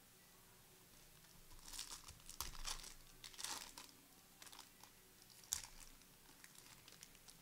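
Trading-card pack wrapper crinkling and tearing in a few quick bursts, then a single sharp click about five and a half seconds in.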